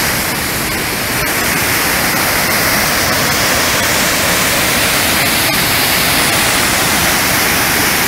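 A tall waterfall's white water rushing steadily, a constant roar heard close to the falls.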